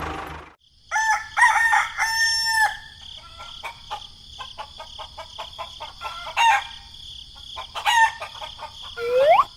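Chickens calling: a long, pitched crow between about one and three seconds in, then a run of short clucks. A louder mechanical noise cuts off about half a second in.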